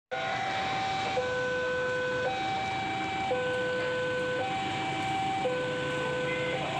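Railway level-crossing warning alarm sounding: two electronic tones alternate, high then low, each held about a second, over steady background noise.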